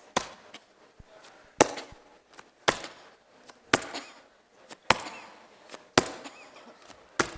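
Sharp hand claps, seven in a row about a second apart at slightly uneven spacing. They are the cue signals in a reflex drill, each one calling for a cough and a pelvic-floor squeeze.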